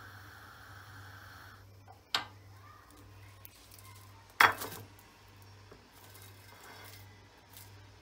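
Gas stove burner flame hissing for about a second and a half, then going quiet. After that come two sharp clatters, the second much louder, as charred eggplants are knocked against the metal pan support and set down, over a steady low hum.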